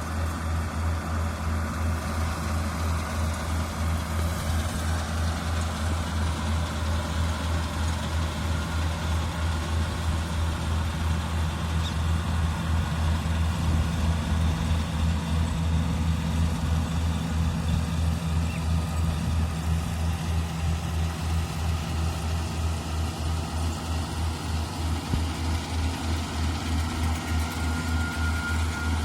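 Daedong DSC62G half-feed combine harvester's engine running steadily with a low, even throb.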